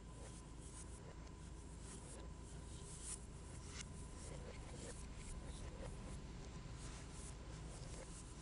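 Stylus strokes scratching and tapping on an iPad's glass screen in quick, irregular bursts.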